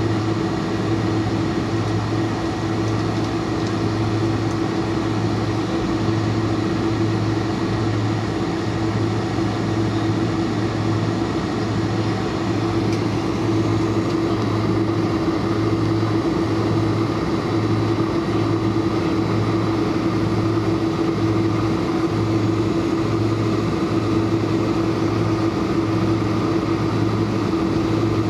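Boeing 747-400 cabin noise on the ground: steady engine and cabin drone with a constant whine and a low hum that pulses about once a second.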